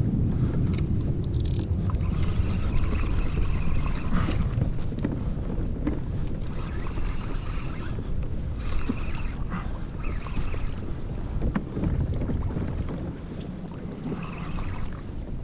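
Penn Spinfisher spinning reel whirring in several spells of a second or two while a hooked fish is fought from a kayak, over steady wind rumble on the microphone.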